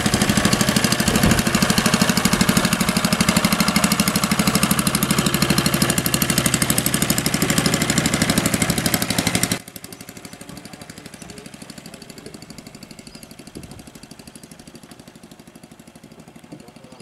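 Small wooden fishing boat's engine running close by with a rapid, even beat. About ten seconds in it cuts off abruptly to a much fainter engine that keeps the same even beat.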